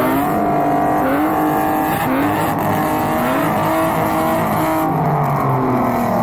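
Several drift cars revving their engines while standing still. The engine notes overlap and repeatedly climb and drop in pitch.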